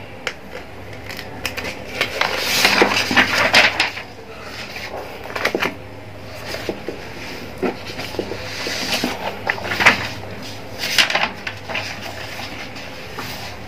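Pages of a paperback textbook handled by hand: paper rustling and sliding in several bursts as the book is pressed flat and shifted, with a few light taps.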